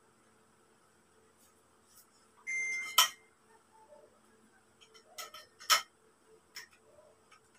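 Metal poles and fittings of a telescopic clothes rack being handled: a short high squeak about two and a half seconds in, then a sharp clink, followed by a few more clinks and clicks, the loudest near six seconds.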